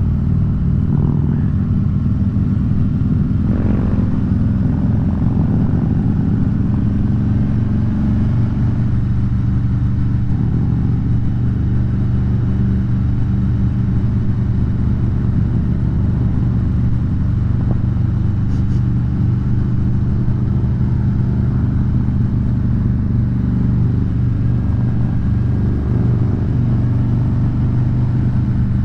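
Harley-Davidson V-twin touring motorcycles riding in a group at a steady cruise, the rider's own Electra Glide engine mixed with the other bikes around it.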